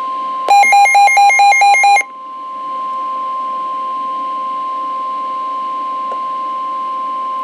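NOAA Weather Radio's 1050 Hz warning alarm tone, a steady single-pitched tone that announces a warning, played through a Midland WR120B weather radio. About half a second in, a loud, rapid electronic beeping sounds over it for about a second and a half: the radio's own alert beeper.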